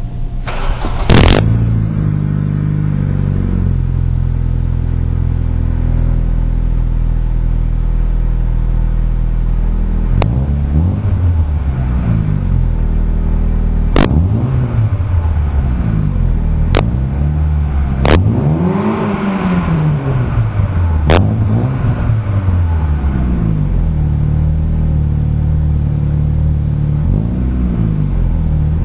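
Chevrolet Aveo four-cylinder engine running through a fart-can muffler with an exhaust leak. It idles steadily at first, then is revved several times in short blips, the pitch rising and falling, with one longer rev about two-thirds of the way in. A sharp click comes about a second in, and a few more sharp clicks come during the revs.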